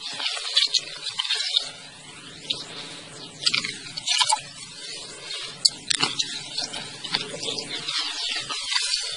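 Hands squelching in wet mud and shallow water as they work a line into a mud hole: irregular wet squishes and splashes, with a couple of sharp clicks about halfway through.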